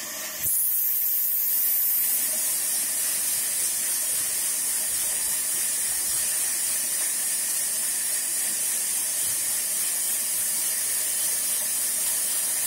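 Sawmill band saw running and cutting into a log: a steady high hiss over a faint whine, stepping up suddenly about half a second in.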